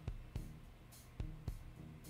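Quiet background music with a drum beat and low pitched bass notes.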